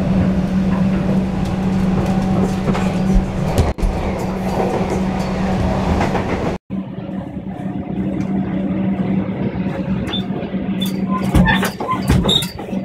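Inside a Melbourne suburban electric train carriage running on rough, bouncy track: a steady rumble and rattle with a constant low hum. About ten seconds in, a run of sharp knocks and rattles comes through as the carriage jolts.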